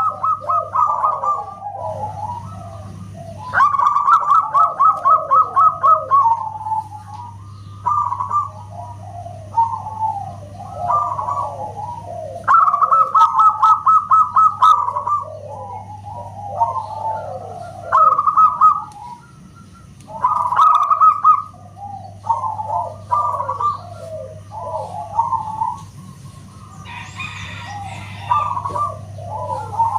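Zebra dove (perkutut) cooing repeatedly in rippling phrases, with two fast runs of rapid short coo notes. A steady low hum runs underneath.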